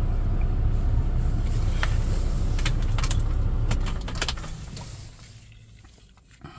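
Kia Bongo 1-ton truck's diesel engine idling with a steady low rumble, with a few sharp clicks a couple of seconds in. The rumble dies away a little after four seconds, and a single click comes near the end.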